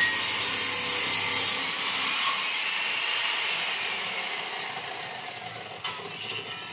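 Power saw cutting agarwood: a steady high whining rasp that fades away over several seconds, with a short knock near the end.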